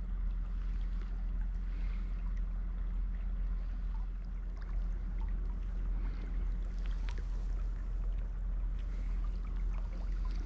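Steady rush of a flowing stream, with a low rumble underneath and a few faint ticks.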